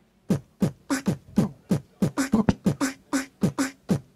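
Beat of self-recorded beatboxed mouth-sound samples, kick drums and short percussive hits, played from the pads of a Native Instruments Maschine. The hits come in a quick steady rhythm of about four a second, the low kick-like ones dropping in pitch.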